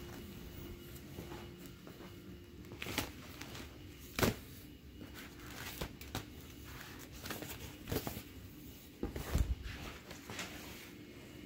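Handling noise from vinyl inflatable toys being moved about: scattered crinkles and knocks, the sharpest a click about four seconds in and a low thump about nine seconds in.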